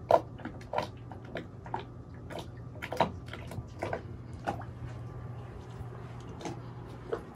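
Irregular short clicks and soft knocks, roughly two a second, over a steady low hum.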